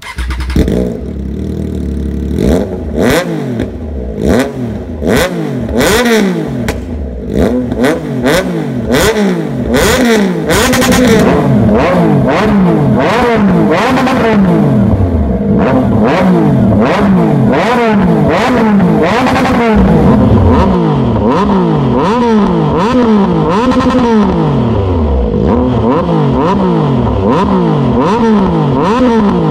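2022 Triumph Tiger Sport 660's inline three-cylinder engine revved again and again in neutral through an aftermarket full exhaust system. Each blip rises quickly and falls back, about one a second, with sharp pops between the revs in the first ten seconds or so.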